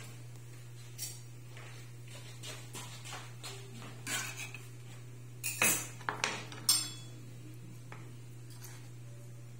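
Kitchen knife cutting grilled chicken on a wooden cutting board: scattered knocks and scrapes of the blade on the board, with a quick run of louder knocks about five and a half to seven seconds in. A steady low hum runs underneath.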